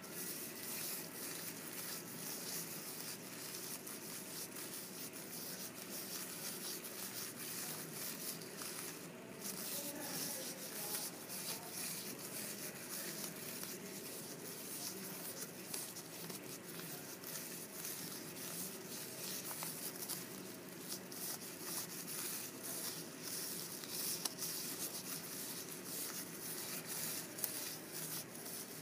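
Plastic shopping-bag strip crinkling and rustling steadily as it is pulled from a pile and wound by hand into a ball of plastic-bag yarn.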